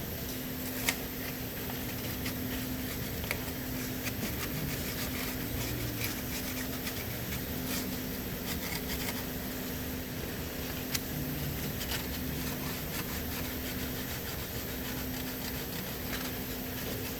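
Sandpaper being rubbed by hand over a part, a steady scratchy rubbing with a few light clicks.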